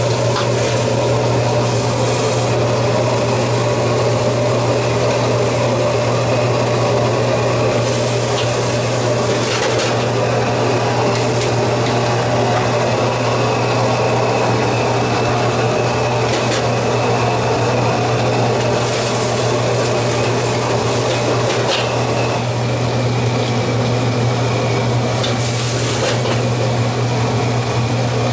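Sunfish pieces and vegetables sizzling as they are stir-fried in a wok over a steady low roar from the burner, with a metal ladle scraping and knocking against the wok every few seconds.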